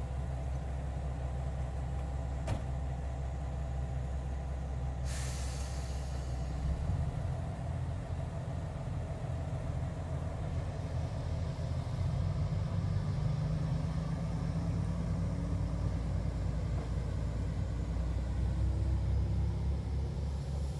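Heavy vehicle's engine running steadily with a low rumble, with a short burst of hissing air about five seconds in.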